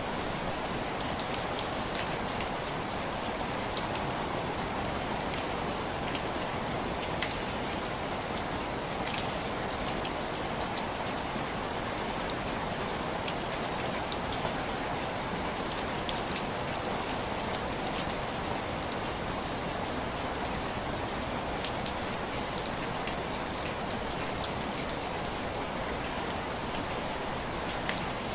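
Steady rain falling on window glass: an even hiss with scattered sharper taps of single drops.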